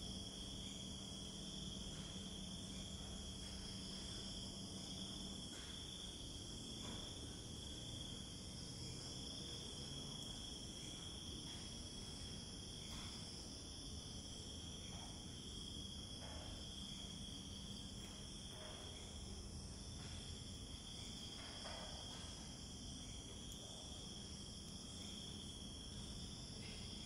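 Night-time insect chorus: a steady, high-pitched chirring that does not let up.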